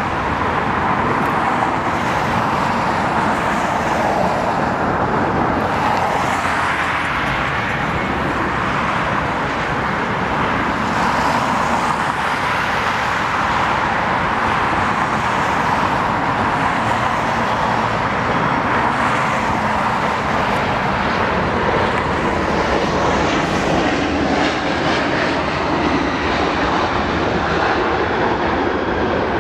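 Boeing 787 jet engines running at high power as the airliner starts its takeoff roll: a steady, loud engine noise.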